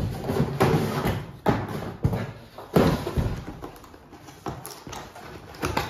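Cardboard boxes being handled: box flaps and a flat cardboard lid scraping and knocking together in a series of irregular thumps and rustles, the loudest just before three seconds in.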